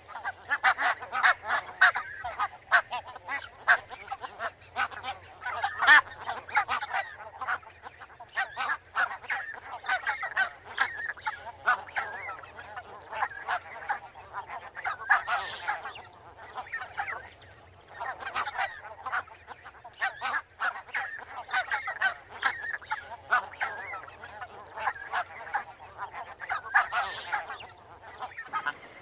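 A flock of barnacle geese calling: many short, rapid yapping honks overlapping almost without pause, easing briefly a little past halfway before picking up again.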